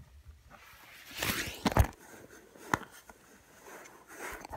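Rustling and scraping as a powder compact is pulled from a cardboard box and worked open by hand, with a louder scrape about a second and a half in and a single sharp click a little past the middle.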